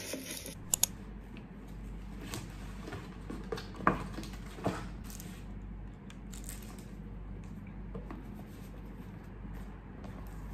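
Indoor room tone with a low steady hum and a few light clicks and taps of small objects being handled: a quick pair about a second in, the sharpest about four seconds in and another just after.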